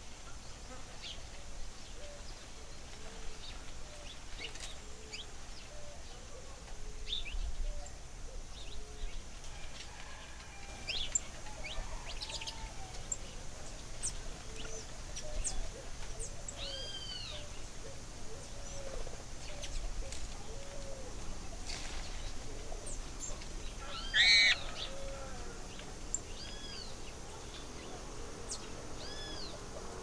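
Birds calling: scattered short chirps and repeated arching call notes at several pitches, with one louder call about 24 seconds in.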